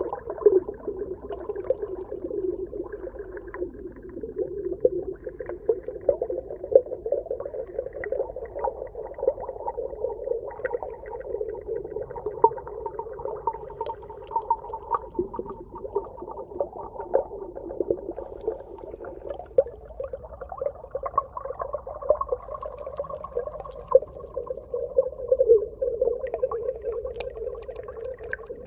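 Underwater ambience: a steady, muffled drone with slowly wavering tones and a constant patter of small clicks and crackles.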